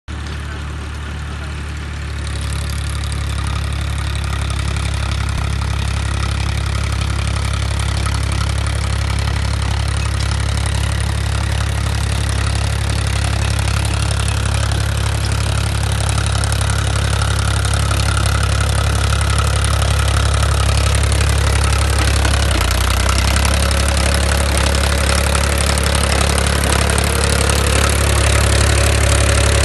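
Powertrac Euro 50 tractor's diesel engine running steadily under load while driving a power harrow through stony soil, with the churning of stones and earth mixed in. It grows louder about two seconds in, and the engine note changes about twenty-two seconds in.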